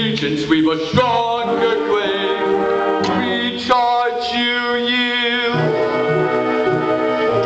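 Live operetta music: singing over instrumental accompaniment, with a voice holding a long wavering note about four seconds in.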